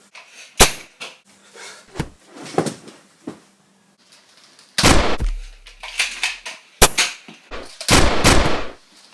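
Gunfire sounds: single sharp shots spaced over the first few seconds, then two rapid bursts, one about five seconds in and one near the end, with another single shot between them.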